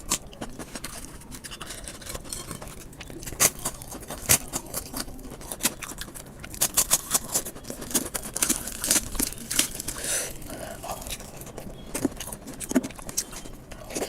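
Eating sounds at a plate of rice and chicken curry: scraping and a run of sharp clicks and smacks, busiest in the middle.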